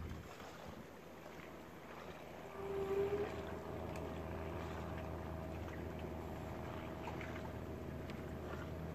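A boat engine running steadily, getting louder about two and a half seconds in and then holding, with a brief tone near the same moment.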